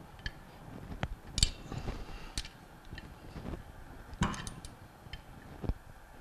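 Scattered clicks and knocks of a wrench tightening the cover-plate bolts on a cast-iron Bell & Gossett Series 1510 pump bearing frame, with the sharpest clicks about one and a half seconds in and just after four seconds in.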